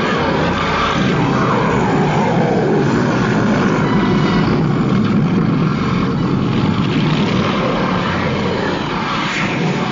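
Cartoon sound effect: a loud, steady rushing drone, with a few falling swooping tones in the first couple of seconds.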